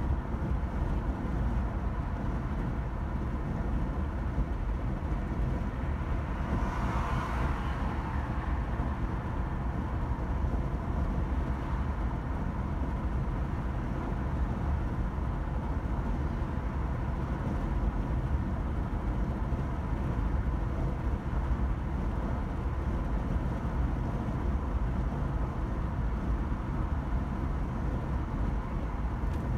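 Steady low rumble of a car driving: road and engine noise, with a faint steady whine. About seven seconds in, a brief swell of hiss rises and fades.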